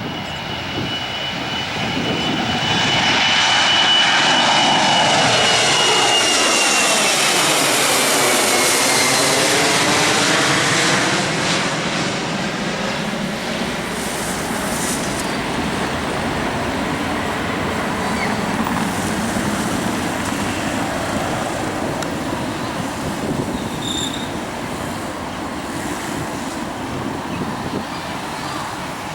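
Twin-engine jet airliner taking off and passing by: engine rumble with a high fan whine that falls slightly in pitch. It swells over the first few seconds, is loudest for several seconds with a sweeping, phasing hiss, then settles into a quieter, steady rumble as it climbs away.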